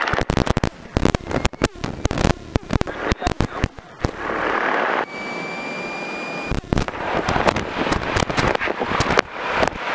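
Grumman single-engine light aircraft's piston engine idling with the propeller turning, heard from inside the cockpit as a dense, irregular crackling and popping. Around the middle it gives way for a couple of seconds to an even hiss with a thin steady whistle, then the crackling returns.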